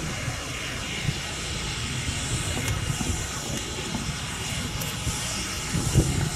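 Steam locomotive approaching under heavy load with a passenger train, working hard with a steady exhaust sound. A brief low thump comes near the end.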